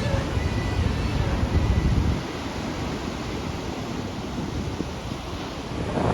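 Ocean surf washing steadily, with wind rumbling on the microphone for the first two seconds before it drops away suddenly; the wash swells again near the end.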